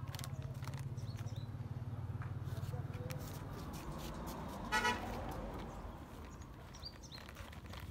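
A low, steady engine-like hum that fades after about three and a half seconds, then one short horn-like toot just before five seconds in.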